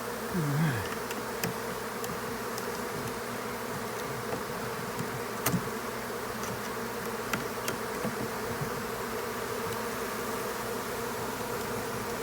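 Many bees buzzing together in a steady, dense drone, with one bee passing close, its pitch sliding, about half a second in. A few light clicks sound now and then.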